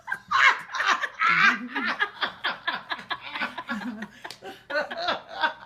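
Laughter: a long run of hearty laughing in quick, choppy bursts.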